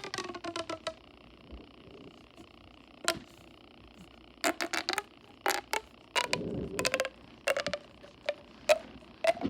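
Plastic pop tube being stretched and bent, its ribbed sections snapping with loud pops. The pops come in quick runs and singly, each with a short ringing tone.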